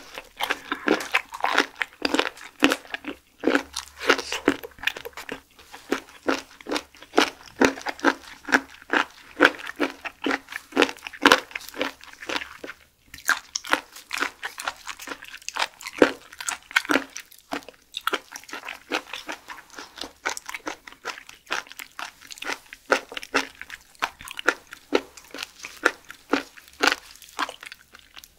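Close-miked chewing of raw shellfish eaten straight from the shell: a rapid, unbroken run of crisp, wet clicks and crunches, several a second.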